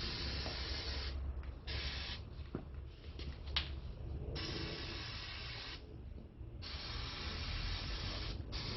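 A brake pad shim being cleaned: a hissing, scrubbing noise that comes in about five long stretches separated by short pauses.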